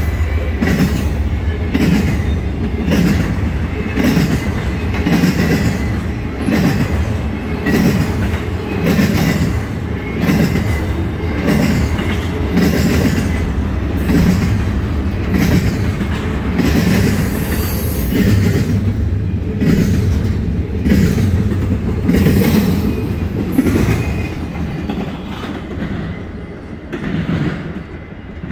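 Norfolk Southern intermodal freight train's cars rolling past with a steady rumble and a clickety-clack of wheels roughly once a second, fading over the last few seconds as the train moves away.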